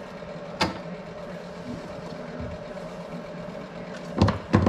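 Steady mechanical hum in the background, with a single sharp click about half a second in and two loud knocks close together near the end, as tools and parts are handled inside a bare metal car body.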